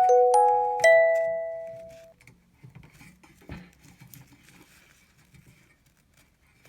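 Background music of struck, bell-like mallet notes: a few notes ring out and fade over the first two seconds, then the music pauses, leaving only faint small taps and rustles.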